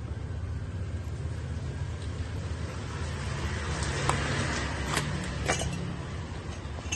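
Small clicks and ticks of hands handling the ignition module and its wires on a bare brush-cutter engine, a few sharp ones between about four and five and a half seconds in, over a steady low background rumble.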